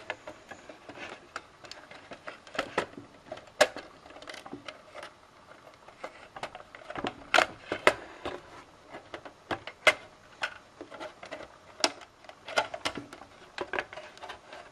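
Scattered small clicks and taps of plastic and thin metal parts being handled as a PS3 Slim Blu-ray drive's cover is eased off, with a cluster of louder knocks about halfway through.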